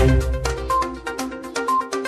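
News intro theme music: sustained chords over a fast, even electronic pulse, with a short high note about once a second. The deep bass fades out partway through.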